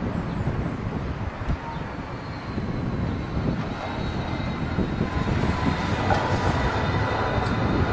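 Tram approaching on its rails, its running rumble growing steadily louder, with a faint high whine coming in during the second half.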